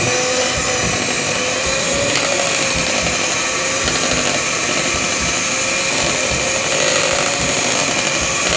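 White electric hand mixer running steadily, its beaters whisking cake batter in a bowl: a continuous motor whine with a slight waver in pitch.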